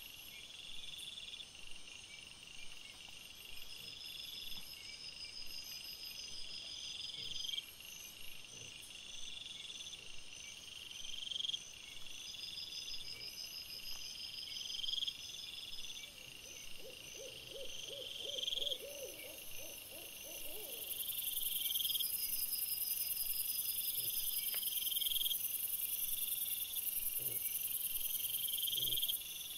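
Night insects, crickets and bush crickets, chirping in steady repeating phrases. A higher, denser buzz joins about two-thirds of the way in and becomes the loudest sound. Around the middle a brief run of quick, low, evenly pulsed calls is heard, with a few faint soft knocks.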